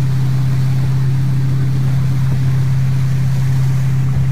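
Towing motorboat's engine running at a steady, unchanging pitch, with water rushing in the wake.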